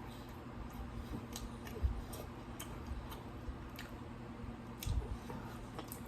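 Close-up chewing of pizza: wet mouth clicks and smacks at irregular intervals, with a couple of low thumps.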